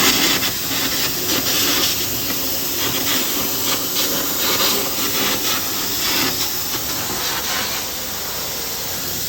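Loud, steady hissing noise with irregular crackling bursts, from work going on at an industrial plant.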